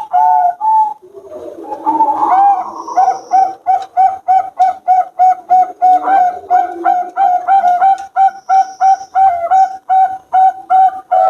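Zebra dove (perkutut, Bangkok type) cooing: a long run of short, loud, clipped coos, about three a second, after a brief pause about a second in.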